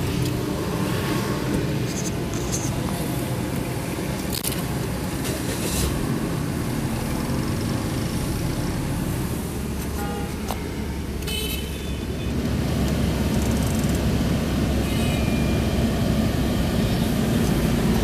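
Toyota Tank's engine idling steadily, heard from inside the cabin with the air conditioning switched on: a steady low rumble that grows a little fuller about two-thirds of the way through.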